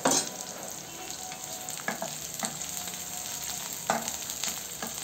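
Sliced onions sizzling in oil in a wok as they are sautéed toward pink, with a spatula scraping and knocking against the pan several times as they are stirred.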